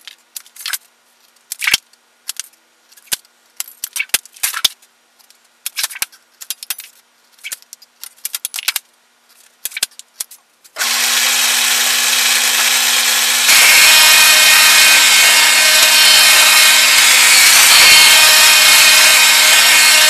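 Hand tin snips cutting notches in galvanized sheet metal: a string of sharp, separate snips. About eleven seconds in, a sheet-metal lock-former machine's motor starts with a steady loud hum. It grows louder a couple of seconds later as the sheet feeds through its rollers to form a Pittsburgh lock edge.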